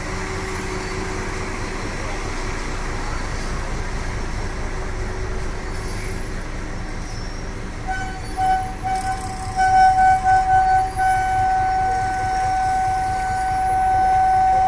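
Toy train's horn sounding one steady pitch: a few short toots about halfway through, then one long held toot to the end, over a steady low rumble.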